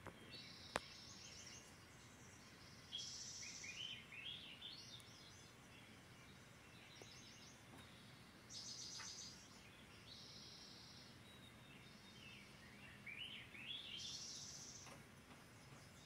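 Faint birdsong played through a television's speaker: several short trilled and rising phrases come and go, with a sharp click about a second in.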